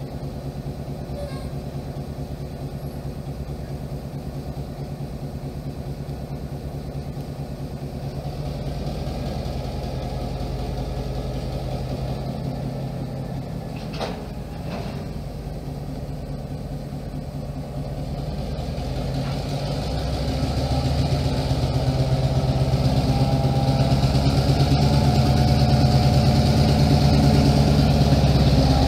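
EMD SW9 switcher locomotive's V12 two-stroke diesel engine running steadily as the locomotive moves slowly, growing louder over the last third as it draws close. Two brief sharp sounds occur about halfway through.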